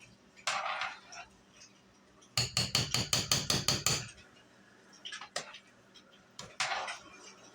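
A metal spoon tapping quickly against the pot's rim, about a dozen sharp ringing knocks in under two seconds, knocking tomato paste off into the soup. Shorter scrapes and clinks of kitchenware come before and after.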